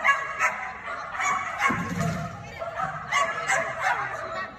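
Dog barking repeatedly in short, sharp barks during an agility run, the barks thinning out near the end.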